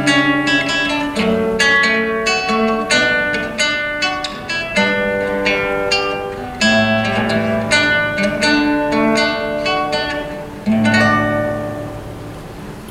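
Acoustic guitar played solo, plucked notes and chords closing out a song. Near the end a last chord rings out and fades away.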